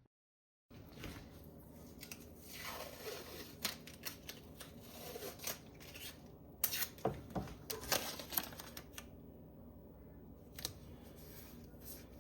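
Painter's tape being pulled, torn and pressed onto a countertop: scattered crackles, tearing strokes and light taps.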